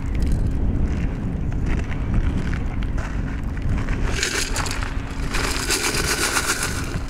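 Wind buffeting the microphone throughout. From about four seconds in, two spells of gritty rattling hiss as quenched, glassy lava fragments pour out of a tin can into a cloth sample bag.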